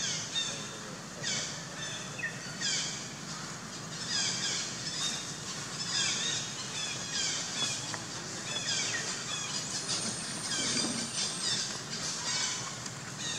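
Repeated short, high-pitched calls, each sliding downward, coming several times a second in bunches, with one long, steady high note near the end.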